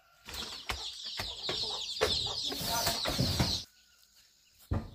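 Chickens calling: a dense chorus of short, high cheeping calls mixed with a few lower clucks and scattered knocks. It cuts off abruptly about three and a half seconds in.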